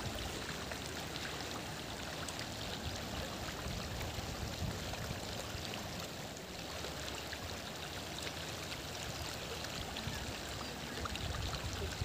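Steady rushing and rippling of a wide, shallow river current.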